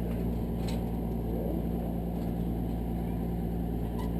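A steady low mechanical hum with a few fixed low tones, unchanging in level.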